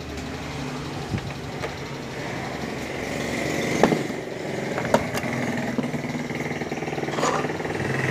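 A small engine running steadily with a low hum, with a few light knocks.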